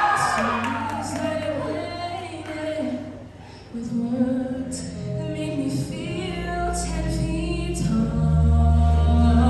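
A mixed adult choir singing sustained chords in a hall. The sound thins out about three and a half seconds in. A low bass line comes in around six seconds in and grows fuller near the end.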